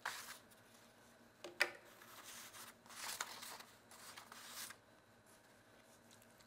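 Sheets of paper being slid and laid down on a table, rustling faintly in several short spells, with one light tap about one and a half seconds in.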